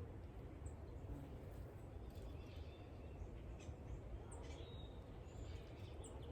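A few brief, high bird chirps at a backyard feeder over a steady low outdoor background hiss.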